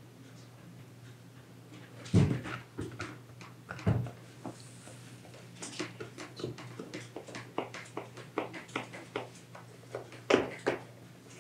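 Knife cutting through layered baklava dough in its baking tray: a couple of heavier knocks about two and four seconds in, then a run of short sharp clicks, two or three a second, as the blade meets the tray, over a steady low hum.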